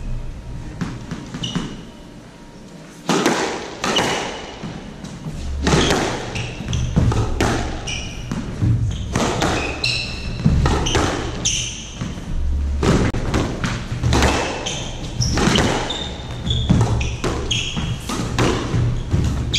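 A squash rally: the hollow rubber ball is struck by rackets and hits the walls again and again, beginning about three seconds in. Short high squeaks of court shoes on the wooden floor come between the hits.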